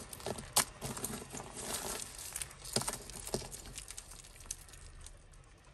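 Rustling and small irregular clicks and taps of costume jewellery and plastic bagging being handled and sorted by hand, busier in the first half.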